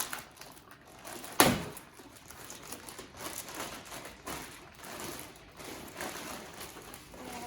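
Packaging being handled as a boxed turbocharger is unpacked: irregular rustling and small knocks, with one sharp thump about a second and a half in.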